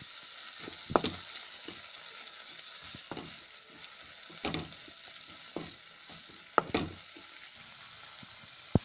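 Green chillies and mint leaves sizzling in hot oil in a metal kadai, stirred with a spatula. The spatula scrapes and knocks against the pan several times, with sharp knocks about a second in, after six and a half seconds and near the end.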